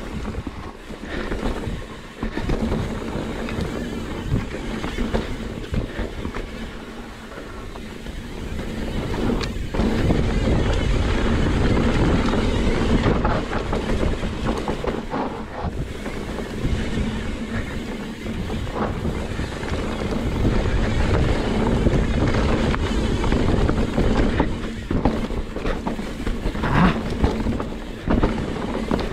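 Mountain bike riding down a dirt singletrack: steady wind noise on the microphone over the tyres rolling on dirt, with scattered knocks and rattles from the bike over bumps. It gets louder about ten seconds in as the bike speeds up.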